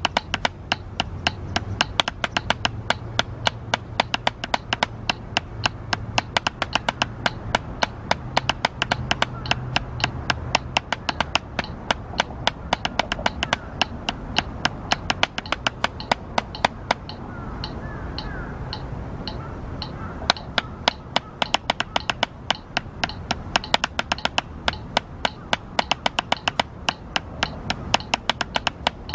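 Drumsticks striking a practice pad in a steady, even single-stroke rhythm, several strokes a second, as sharp taps. The strokes turn softer for a few seconds past the middle.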